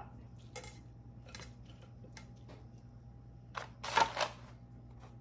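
A few short clicks and knocks from a kitchen knife against the plate and cutting surface as sliced pork tenderloin is moved onto a plate, with a louder cluster of clatter about four seconds in.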